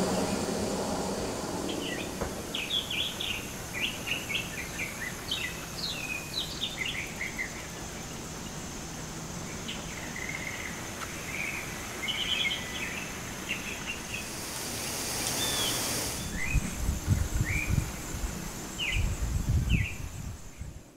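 Small birds chirping and calling in short, repeated notes. A burst of hiss comes a little past the middle, and low rumbling thumps come near the end.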